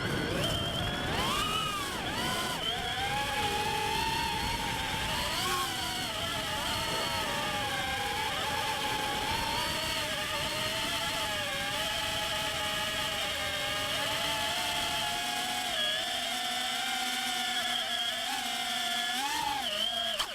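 Electric motors and propellers of a DarwinFPV CineApe 35 FPV cinewhoop drone whining in flight. The pitch rises and falls with throttle over the first few seconds, then holds a fairly steady hum, with a low rumble under it that fades out after about 15 seconds.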